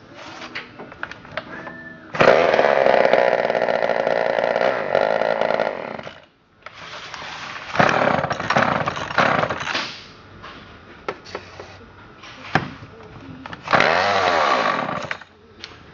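Homelite XL top-handle chainsaws' two-stroke engines running, revved hard in bursts of a few seconds and dropping back to a lower, uneven run between them. The saws run on primed carburetors and still need carburetor work.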